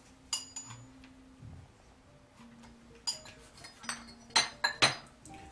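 China teacups, saucers and pot clinking against each other on a tea tray as tea is served: a couple of sharp clinks with a short ring just after the start, then a cluster of clinks in the second half.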